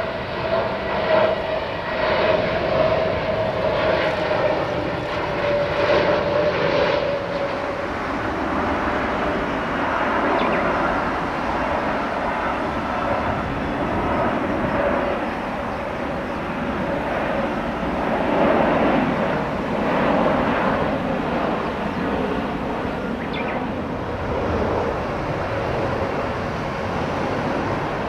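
Jet airliners on final approach passing overhead: a steady rush of turbofan engine noise, with a whine that drifts slightly lower in pitch over the first several seconds.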